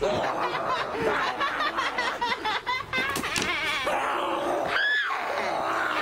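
Several people laughing and shrieking over one another in wavering, pulsing voices, with one rising-then-falling cry about five seconds in.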